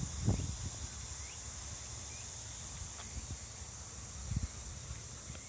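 Steady high-pitched shrilling of an insect chorus, with a few low thumps, one just after the start and another about four seconds in.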